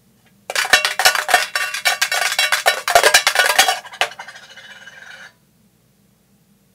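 A penny rattled and shaken inside a coin bank, a quick dense clatter of clinks starting about half a second in. It goes on for about three and a half seconds, then a fainter rattle dies away.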